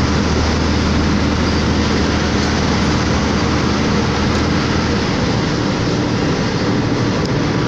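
Diesel truck engine running steadily under the hiss of tyres on a wet highway, heard from inside the cab. The low engine drone eases a little about five seconds in.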